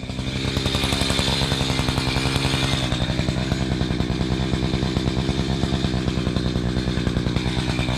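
Chainsaw revving up and then running steadily at high speed.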